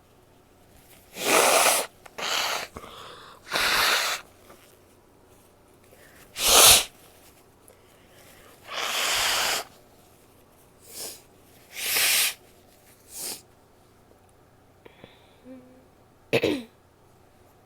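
A woman sneezing and blowing her nose over and over: a run of about nine loud, breathy bursts, some held for about a second, separated by short pauses. The sharpest burst comes about six and a half seconds in, and the last one is voiced.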